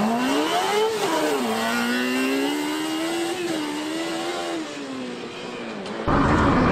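Semog Bravo sprint-car buggy accelerating hard on gravel, its engine pitch rising, dropping at a gear change, then holding as the car pulls away and fades. About six seconds in the sound switches suddenly to a much louder, closer engine.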